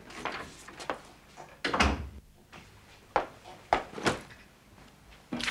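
A door shutting with a heavy thud about two seconds in, followed by a few sharp knocks and clicks.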